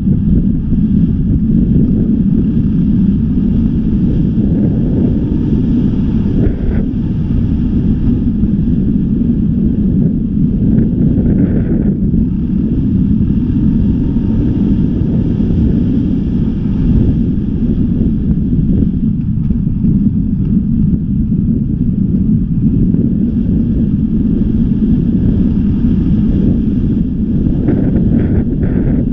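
Wind buffeting the microphone of a moving camera: a loud, steady low rumble.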